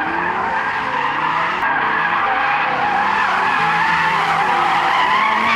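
A car's tyres squealing in a long, sustained skid, the pitch wavering, with the engine running underneath.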